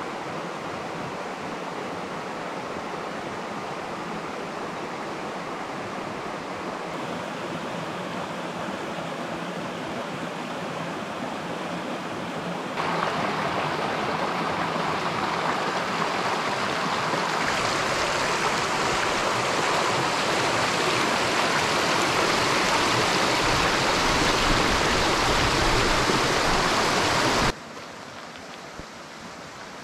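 A small waterfall and rapids on the Petawawa River, water rushing steadily over rocks. The rush grows louder in a few sudden steps, then drops abruptly to a softer flow near the end.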